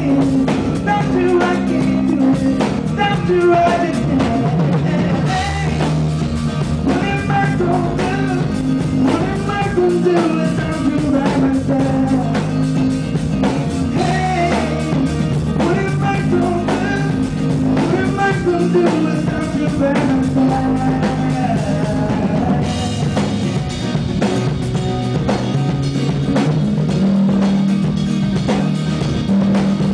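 Live band music: a male singer with acoustic guitar, backed by electric bass and a drum kit. About three-quarters of the way through the singing stops and the band plays on with brighter cymbals.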